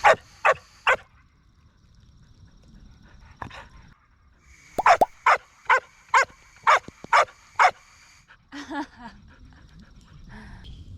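Dog barking in sharp repeated barks: three quick barks, a single bark about three and a half seconds in, then a run of about eight barks.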